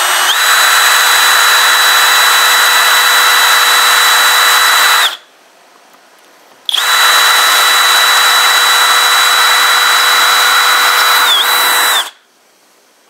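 Kobalt 24V brushless hammer drill on its high-speed setting (number two), boring into brick with a masonry bit. It runs in two bursts of about five seconds each with a short pause between, holding a steady high whine over a rattling grind. The whine dips briefly just before the second burst stops.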